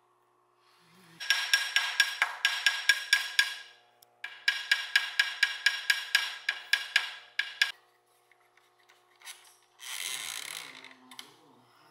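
Clamps being ratcheted tight against a solid-wood board: two runs of quick, sharp clicks, about four or five a second, each lasting a few seconds. A short scraping rub follows near the end.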